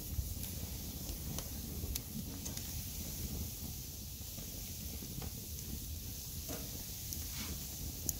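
Wood and charcoal fire burning in a grill under meat on the grate: a steady high hiss with scattered sharp crackles and pops, over a low rumble.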